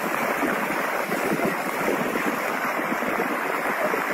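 Fast-flowing muddy floodwater rushing along a street, a steady unbroken rush of water.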